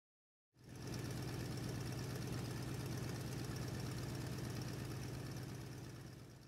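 An engine running steadily with an even low drone. It starts suddenly about half a second in and fades out near the end.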